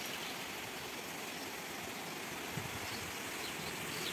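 Heavy rain falling in a dense, steady hiss, with a brief low thump about two and a half seconds in.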